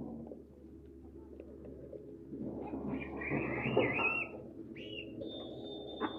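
Birds calling over a low, steady background: a wavering, warbling call about three to four seconds in, then a steady high whistled note near the end.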